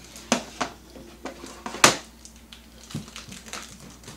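Hard objects being handled and set down on a table: several sharp clacks and knocks, the loudest a little under two seconds in.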